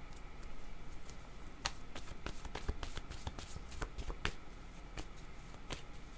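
A thick, well-worn deck of paper divination cards being shuffled by hand: a quick, irregular run of soft card clicks and flicks.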